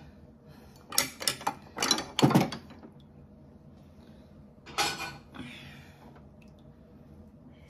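Dishes and utensils being handled at a kitchen sink: a quick run of clinks and knocks in the first couple of seconds, then one more clatter about halfway through.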